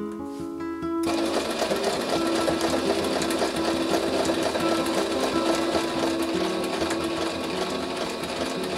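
Singer Brilliance sewing machine stitching through layered denim on a zigzag-type patching stitch. It starts about a second in and runs steadily until near the end, over background music.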